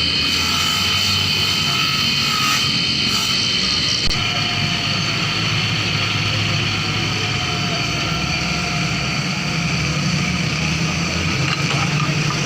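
Steady motor-vehicle engine noise, with a constant high whine over a low hum and a small knock about four seconds in.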